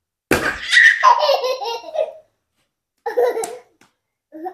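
Laughter in two bursts: a long laugh breaks out suddenly just after the start and lasts nearly two seconds, then a shorter laugh comes about three seconds in.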